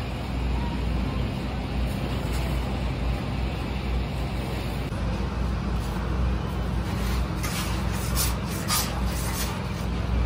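Steady low hum of a spiral dough mixer's motor. A cluster of short, sharp scraping clicks comes about seven seconds in as dough is worked out of the steel bowl.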